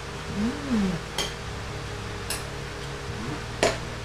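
Metal spoons and forks clinking against ceramic dinner plates three times while eating, over a steady low hum of an electric fan. About half a second in there is a short hum from a voice that rises and falls.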